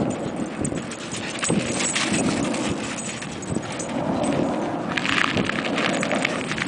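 A Welsh corgi and a Pomeranian terrier running and scuffling together on a sandy concrete patio: a quick, irregular patter and scrabble of paws, with a brief sharper, noisier sound about five seconds in.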